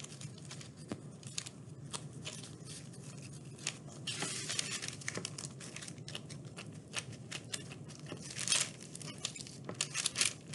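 Disposable-gloved hands kneading and pressing sticky oven-bake polymer clay on a paper sheet: soft crinkling of the paper and sticky peeling of the gloves off the clay, with many small clicks and denser rustling bursts about four and eight and a half seconds in.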